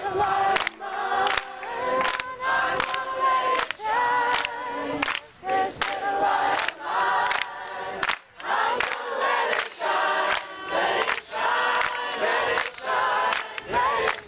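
A group of people singing together in unison, with sharp rhythmic beats about twice a second, such as claps, keeping time.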